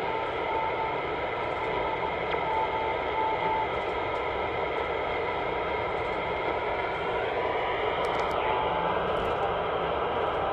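Panasonic RF-B300 shortwave receiver on the RWM Moscow time-signal frequency, its speaker giving steady static hiss with RWM's CW signal heard as a run of short beeps in the first few seconds. About seven seconds in a faint whistle slides up in pitch as the analogue-tuned receiver drifts off the signal.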